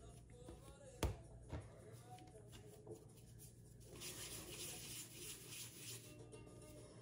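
Hands dividing and shaping pizza dough on a floured wooden board: a sharp knock about a second in and a softer one just after, then a soft rustling hiss from about four to six seconds as floury hands rub and scatter flour.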